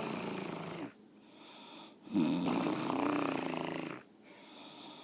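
A woman snoring in two long snores, one ending about a second in and the next from about two to four seconds in, with quieter breathing between them.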